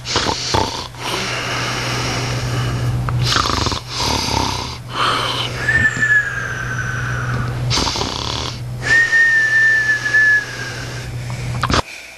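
A man snoring heavily: long, noisy breaths one after another with brief pauses between them. Two of the breaths carry a high whistling tone, each lasting a second or two.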